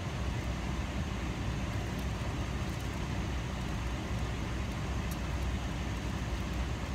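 Steady low rumble and hiss of an airliner cabin, with its engines and air supply running and no distinct events.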